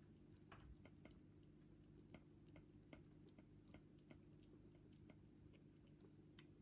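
Faint crunching of a cat chewing dry kibble: small sharp clicks at an uneven pace, a few a second, over a low steady hum.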